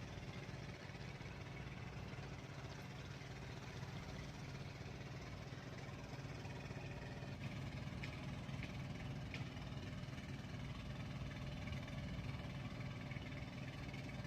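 A small engine running steadily at a constant speed, a low even drone, with a few faint ticks around the middle.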